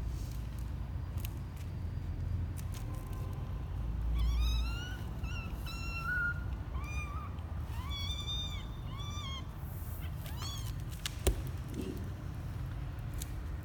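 Twelve-day-old kittens mewing: a run of about eight short, high, thin mews. Near the end comes a single sharp tap.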